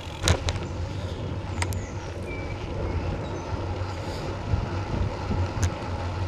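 Wind buffeting a bicycle-mounted action camera's microphone while riding, over a low steady rumble of tyres on tarmac, with a few sharp clicks.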